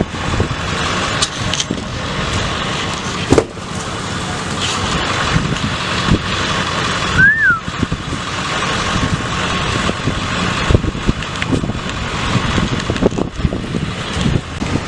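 A car driving, with steady road and wind noise and scattered knocks and bumps. About seven seconds in there is one short chirp that rises and falls.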